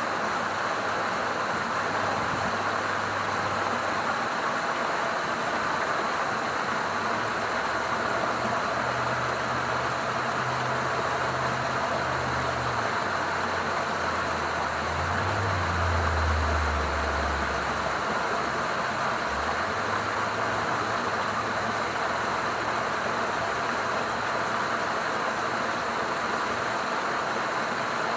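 Steady rush of moving water along a rocky coast, with a low hum under it that sets in about six seconds in, steps up and down in pitch a few times and drops away near the end of the first twenty-odd seconds.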